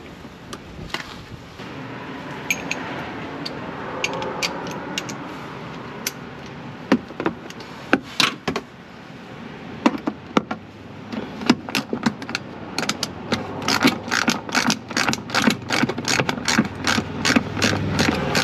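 Hand ratchet wrench clicking as it works a bolt: a few scattered clicks at first, then a quick, steady run of ratchet clicks over the last several seconds.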